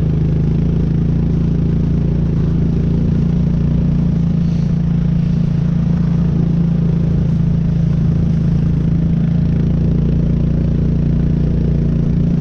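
ATV engine running steadily at an even speed, with no rise or fall in pitch.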